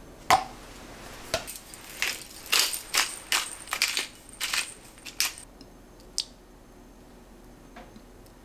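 Hand-twisted pepper mill grinding black pepper in a quick run of short grinding bursts, about three a second for some three seconds, after two sharp clicks near the start.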